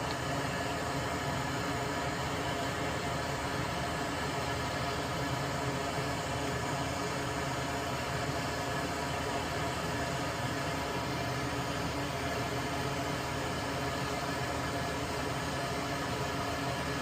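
A small electric motor running steadily: an even whirring hum with a constant pitch that does not change.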